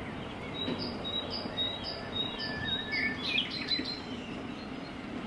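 Small birds chirping outdoors: a run of short high chirps about twice a second, then a brief cluster of varied chirps, over a steady low background rumble.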